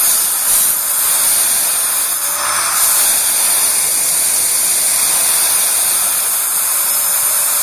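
A 1300-watt household vacuum cleaner drawing air through an Ozon carburettor to simulate engine vacuum: a steady hiss of rushing air, the hiss turning a little brighter about three seconds in as the throttle is eased open from idle.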